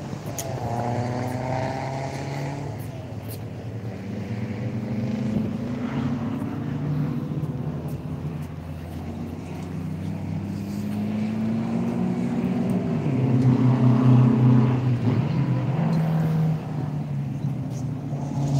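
Air-cooled VW Beetle race car engines running, their pitch rising and falling as they rev, growing louder to a peak about two-thirds of the way through.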